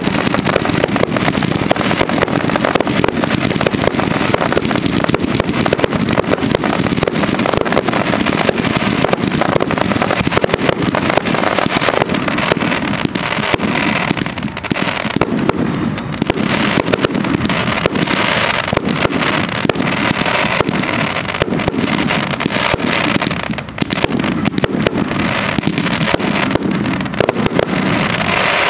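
Fireworks display: a rapid, continuous barrage of aerial shell bursts and crackle, bang after bang with no gaps.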